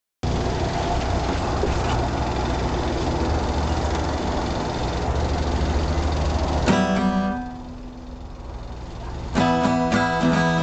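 Rumbling handling noise on the microphone for the first six or so seconds. Then a single acoustic guitar chord is strummed and left to ring out. After a short pause, steady strumming of acoustic guitar chords begins near the end.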